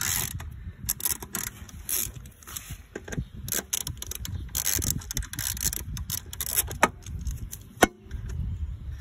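Ratchet and socket clicking, with metal tools clinking, as a spark plug is worked loose from a small lawn mower engine. The clicks are sharp and irregular, over a low rumble.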